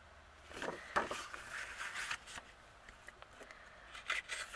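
Sheets of scrapbook paper being handled and turned over, rustling and sliding with a few light taps, starting about half a second in and again briefly near the end.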